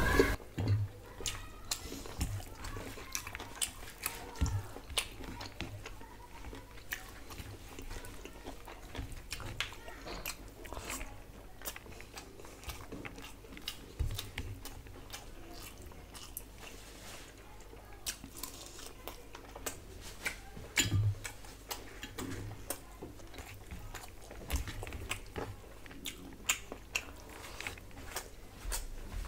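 Close-miked chewing and mouth smacking of a person eating rice and curry by hand: irregular soft clicks and wet smacks throughout, a few louder ones about four, fourteen and twenty-one seconds in.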